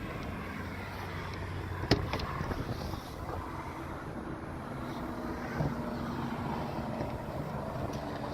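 Steady low rumble of a vehicle engine running, with a sharp knock about two seconds in and a smaller one a few seconds later.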